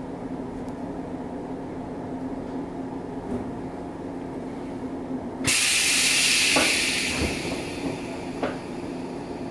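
JR East 115-series electric train standing at a platform, its onboard equipment giving a steady hum. About five and a half seconds in, a sudden loud hiss of released compressed air fades over about two seconds, followed by a few light knocks.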